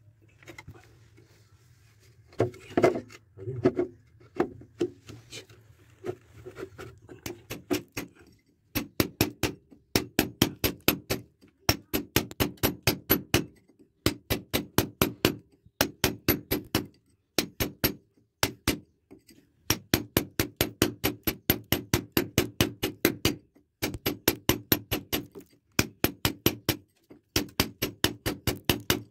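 Small hand hammer struck in quick, even blows, about four or five a second, in runs of a few seconds with short pauses between. Each blow has a short metallic ring. In the first few seconds there are only a few scattered knocks.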